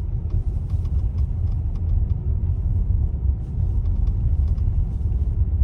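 Tesla Model Y Juniper cabin while driving: a steady low road rumble with faint, irregular creaking ticks over it. This is the intermittent interior creak the owner complains of. One service center suspected the front shock absorber mount, another a poorly joined plastic part under the speaker grille.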